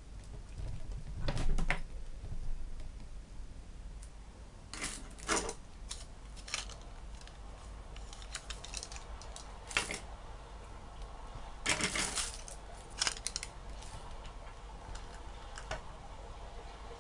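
Handling noise: scattered plastic clicks and rustles as a monocular and its plastic cellphone clip are picked up and turned in the hands, loudest about a second and a half in and again around twelve seconds.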